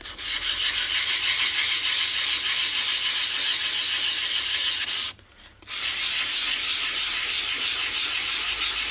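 600-grit wet-and-dry sandpaper on a sanding block rubbed back and forth over the wet painted shell of a motorcycle helmet: a steady scratchy hiss that stops for about half a second a little after five seconds in, then carries on. The sanding is flatting out a small chip in the paint and clear coat.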